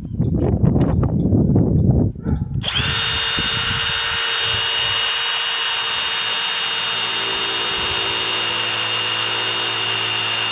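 Hercules 2200 in-lb cordless impact driver hammering loudly and unevenly for about two and a half seconds, then running on as a steady, even whine. The screw is spinning against a thick steel plate without driving in.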